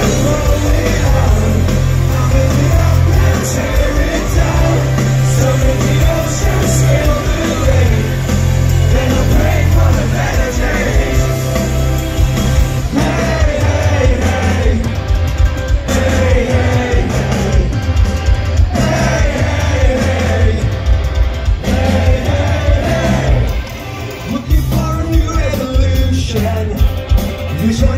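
Rock band playing live through a festival PA: loud amplified guitars, heavy bass and drums, with a male lead vocal singing over them. The music drops back briefly a little after two-thirds of the way through, then comes back in full.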